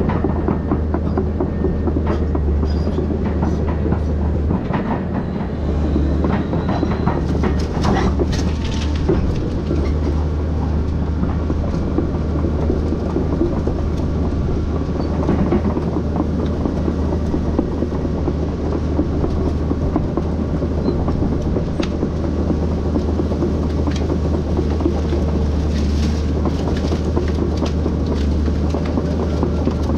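Volvo excavator's diesel engine running steadily under working load, with irregular clatter and sharp knocks as it clears and rakes citrus trees.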